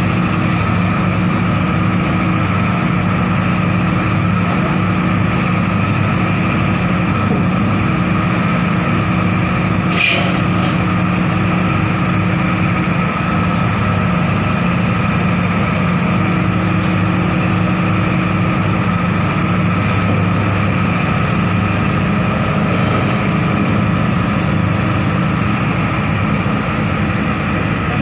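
Heavy diesel engine running steadily at a low, even pitch, with one brief sharp click about ten seconds in.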